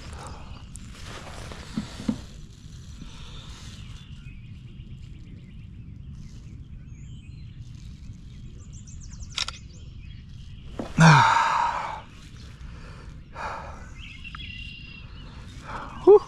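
Steady low outdoor background noise on the water, with a few brief rustles and clicks of handling. About eleven seconds in comes one loud breathy sigh that falls in pitch.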